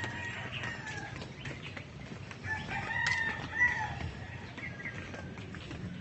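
A rooster crowing: one drawn-out call about halfway through, with a fainter call in the first second, over footsteps on a paved path.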